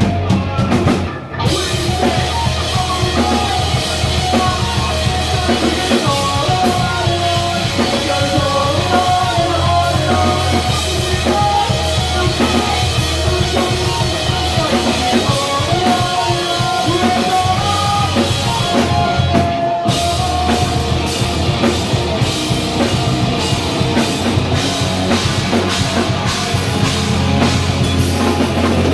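Live rock band playing loud and fast, with a pounding drum kit, distorted electric guitars, bass guitar and a singer at the microphone. The sound breaks off sharply for a moment about a second in and again about twenty seconds in, then carries straight on.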